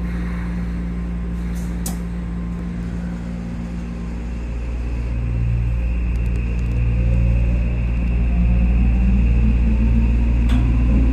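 Electric subway train pulling away from a station, heard from inside the car: a steady low rumble, joined from about halfway through by a motor whine that rises in pitch as the train gathers speed.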